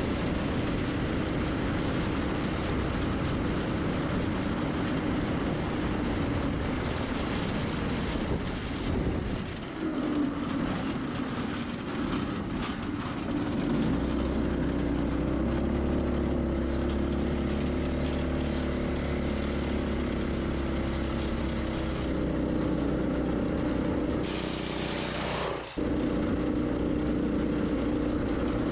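Predator 212 single-cylinder four-stroke engine with its governor removed, driving a go-kart at high rpm on charcoal lighter fluid mixed with two-stroke oil, pinging under the load. The engine note sags about ten seconds in as the kart slows, picks up again, and breaks off for a moment near the end.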